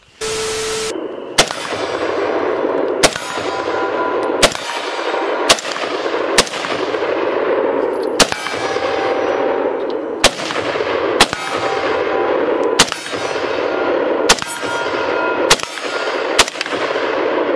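Sig Sauer MCX Rattler short-barreled rifle fired in slow single shots, about a dozen spaced a second or two apart, over a loud steady noise.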